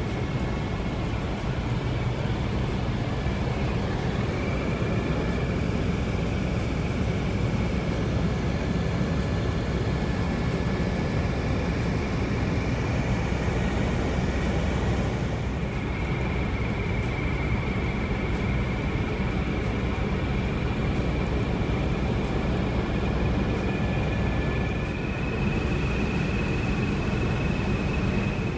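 Helicopter in flight: steady engine and rotor noise with a thin high whine held throughout.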